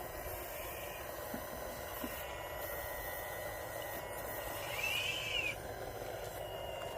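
Small electric motors and gears of a radio-controlled model construction truck whirring steadily, with a brief rising-then-falling whine about five seconds in.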